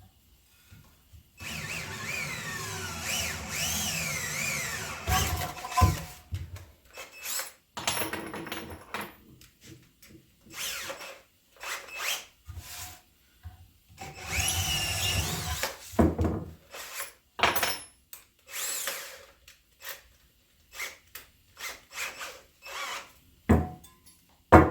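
Power drill drilling out a hole for a Dzus fastener, run in a long pull with a wavering whine, then in many short trigger bursts, with a sharp knock near the end.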